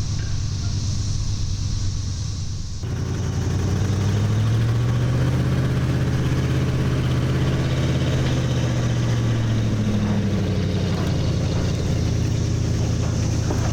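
An engine running steadily, its sound changing abruptly about three seconds in. Its pitch then rises, holds, and eases back down about ten seconds in.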